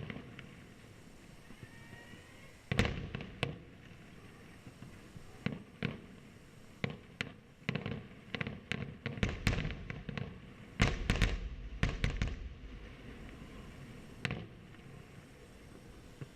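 Fireworks going off in a series of sharp bangs. They are scattered at first, then come thick and fast with a low rumble in the middle, and one last bang falls near the end.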